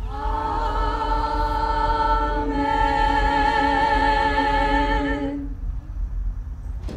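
Church choir singing a hymn a cappella: long held chords with vibrato, moving to a new chord about two and a half seconds in and ending about five seconds in.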